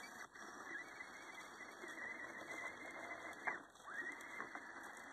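RC crawler's 55-turn electric motor and gearbox whining in short throttle bursts, the pitch rising and falling as the truck strains to climb out of the icy creek, over a steady hiss.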